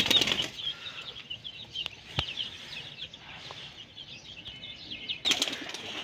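A pigeon's wings flapping as it flies in: a burst of rapid wingbeats near the start and another about five seconds in, as it comes down to land. Quick, high chirping of small birds goes on throughout.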